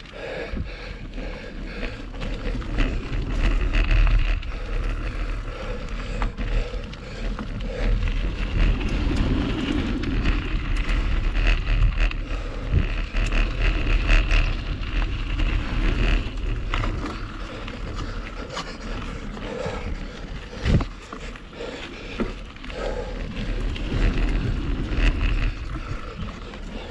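Mountain bike riding along a dirt singletrack trail: wind rushing over the microphone, tyres rolling over dirt and leaves, and frequent clicks and rattles as the bike jolts over the uneven ground.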